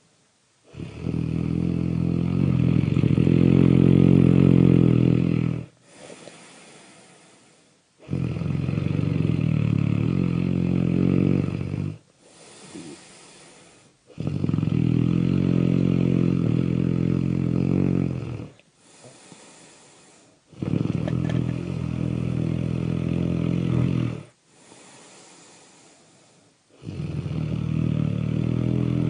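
Really loud, deep human snoring: five long snores about six seconds apart, with quieter breathy stretches between them.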